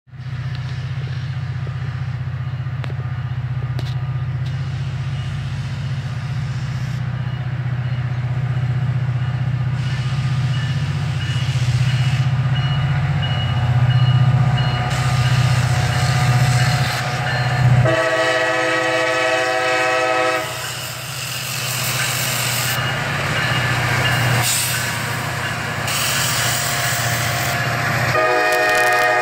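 CSX freight train led by an EMD SD40-2 and GP40-2, with their 16-cylinder 645 diesels, pulling out of a siding. The locomotives run with a steady low rumble that grows louder as they approach. The multi-chime air horn blows a chord for about two and a half seconds about two-thirds of the way in, and starts another blast near the end.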